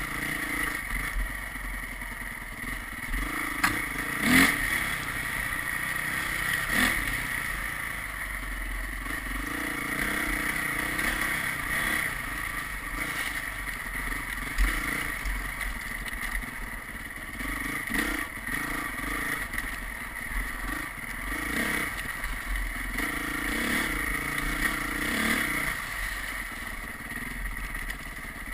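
A vehicle driving along, its engine running and its pitch rising and falling with the throttle, over steady road noise. Sharp clattering knocks come now and then, the loudest about four seconds in.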